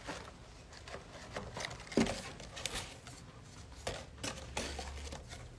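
Handling noise from a gift box of ribbon-tied rolled question scrolls: a few scattered light taps and rustles as the scrolls are lifted and sorted, the sharpest about two seconds in.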